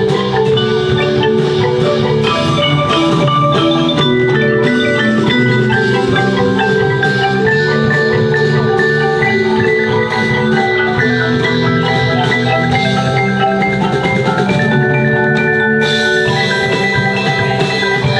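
Percussion ensemble playing a melodic passage on mallet instruments such as marimba, xylophone and glockenspiel, many pitched notes ringing together over a lower part. About sixteen seconds in, the sound gets brighter and fuller as more high parts come in.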